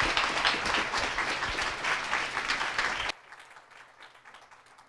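Audience applauding, which cuts off suddenly about three seconds in, leaving faint room tone.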